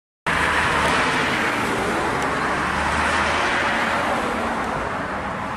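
Car on a road: steady rushing tyre and road noise with a faint low engine hum, slowly fading, after a brief drop to silence at the start.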